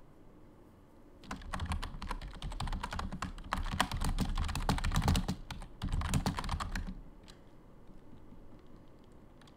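Typing on a computer keyboard: a rapid run of keystrokes starting about a second in and stopping around seven seconds, then only a few scattered key clicks.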